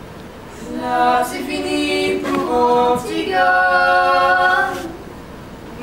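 Several voices singing together a cappella in long held notes, with a short break about three seconds in, then falling quiet near the end.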